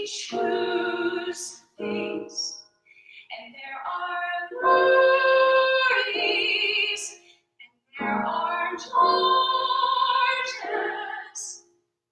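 A woman's solo singing voice, with vibrato on the held notes. She sings several phrases with short breaks between them, and the longest phrases are held about halfway through and near the end.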